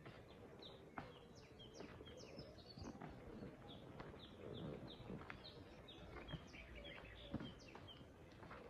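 Faint birds chirping: many short, high, downward-sliding chirps, several a second, with a few soft knocks in between.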